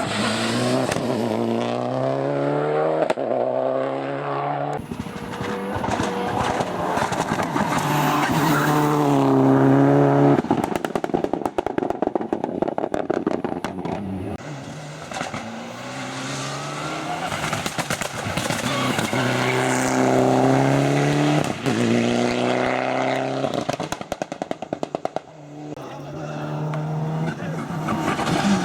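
Mitsubishi Lancer Evo 9's turbocharged 2.0-litre 4G63 inline-four driven hard. It revs up and shifts gear after gear, its pitch climbing with each pull. Between pulls it gives rapid exhaust crackles and pops off throttle, once about a third of the way in and again near the end.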